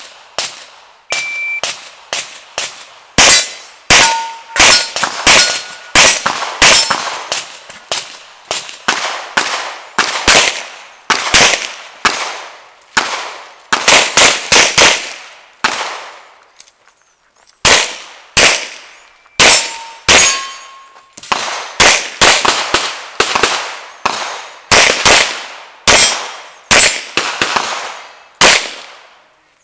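Revolver fired in fast strings of shots, each crack trailing off in an echo, with steel plate targets ringing after some hits. There is a short pause about halfway through.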